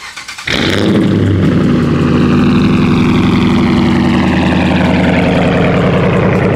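A car engine starting: after a brief crank it catches about half a second in and runs loud and steady at a fast idle, with a high whine that slowly falls in pitch as the engine settles.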